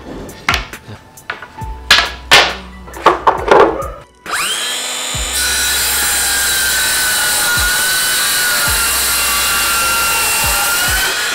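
A few knocks of boards being handled, then a Bosch circular saw spins up about four seconds in and rips steadily through a plywood panel for about seven seconds. Its pitch rises slightly as the cut finishes, just before it stops.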